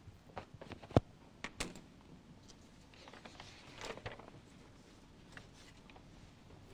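Faint handling noises in a small room: a few light clicks and knocks, the sharpest about a second in, and a rustle of paper sheets being handled about three to four seconds in.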